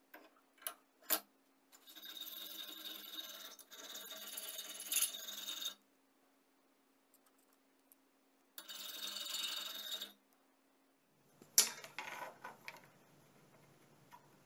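Needle file rasping along the edge of a square steel tube clamped in a bench vise: about four seconds of filing strokes, a pause, then a shorter spell of filing. A few sharp clicks and taps of handling come at the start and again near the end.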